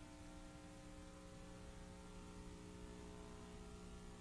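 Near silence: a faint, steady electrical hum over a low hiss.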